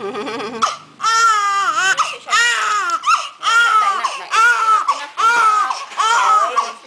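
A newborn baby crying in a string of short, high-pitched wails, each rising and falling in pitch, with brief gasps between them.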